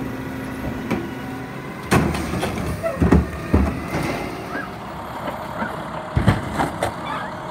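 Automated side-loading garbage truck running while its hydraulic arm tips a cart into the hopper and lowers it back to the ground. A sharp bang about two seconds in, heavy thuds around three seconds, and another thud just after six seconds as the cart comes down.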